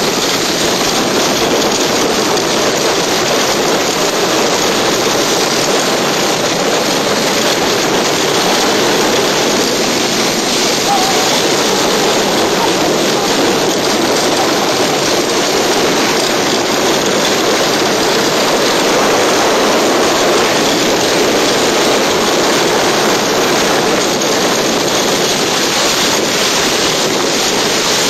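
Loud, steady rushing noise of a refrigerator being towed over the ground behind a car, with no break in it.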